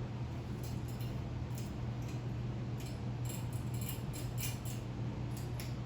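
Lasko 52-inch Turn of the Century ceiling fan running: a steady low motor hum with faint, irregular light ticks and clinks over it.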